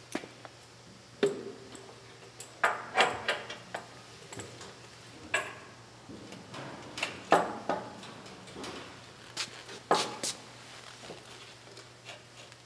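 Irregular metal clanks and clinks as a starter motor is handled and fitted onto an engine by hand. Several of the knocks ring briefly.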